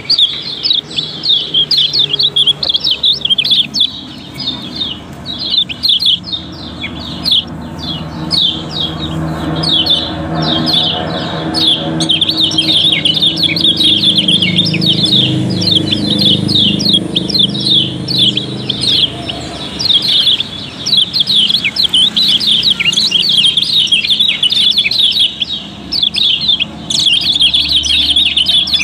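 Several caged white-eyes (kecial kuning) chirping rapidly and continuously, high thin calls overlapping without pause. A faint low hum sits underneath for a stretch in the middle.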